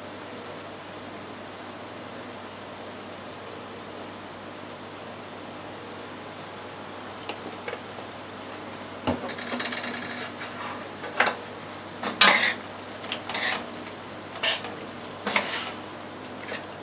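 A faint steady background, then about nine seconds in a knock and a brief crackle, followed by a spoon stirring and scraping against a pot of chicken and egg noodles on the stove, several separate clinks and scrapes about a second apart.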